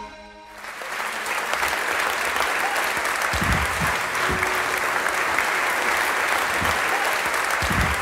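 A short music jingle cuts off about half a second in, and a large audience breaks into steady applause. A few dull low thumps sound under the clapping.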